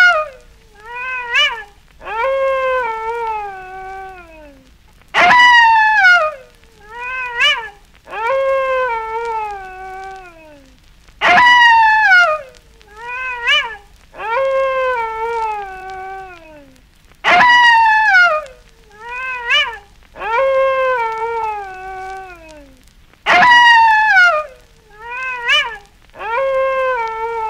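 Wolf howling in a repeating phrase: a sudden loud howl that falls in pitch, two short yips, then a longer howl sliding downward. The same phrase comes round about every six seconds, nearly identical each time.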